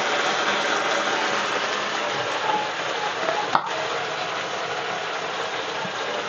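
Onion and capsicum frying in hot oil in a metal wok: a steady sizzle that slowly fades. There is one sharp click about three and a half seconds in.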